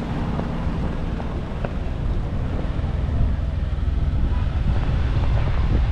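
Steady low engine rumble, with wind buffeting the microphone.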